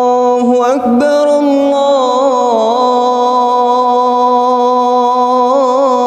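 A male muezzin singing the adhan, drawing out a syllable of 'Allahu Akbar' in one long held note with melismatic ornaments. The pitch drops, with a short break, about a second in, and the held note wavers in turns near the middle and again near the end.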